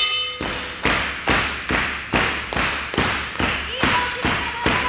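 A steady rhythm of sharp thumps, about two and a half a second, with a short echo from the hall after each.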